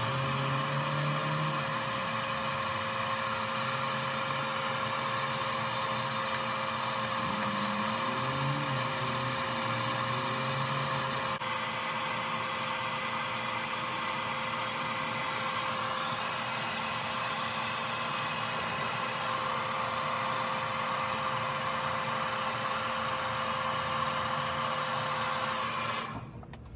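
Handheld hair dryer running steadily with a fixed whine, blowing hot air onto vinyl tint film on a car taillight to soften it; it cuts off near the end.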